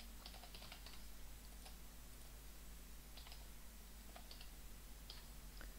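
Faint, scattered keystrokes on a computer keyboard: a dozen or so irregular, separate clicks.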